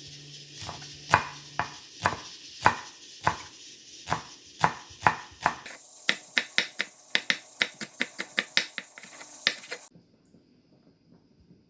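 A series of sharp knocks, spaced unevenly at first, then coming quicker at about four or five a second over a steady hiss, stopping a couple of seconds before the end.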